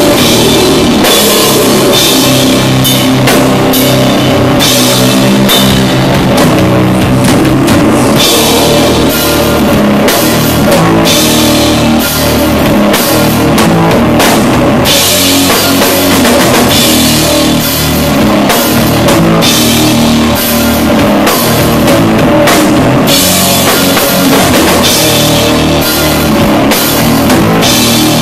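Doom metal band playing live and loud: low, sustained guitar and bass chords that shift slowly over heavy drumming and cymbal crashes.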